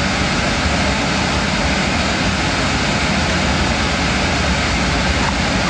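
A steady, loud rushing noise with a low hum underneath.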